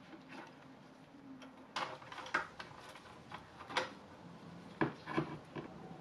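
Irregular sharp metallic clinks and clanks as a headset press is loosened and backed out of a bicycle head tube and an adjustable wrench is handled against it. The clearest knocks fall about two, four and five seconds in.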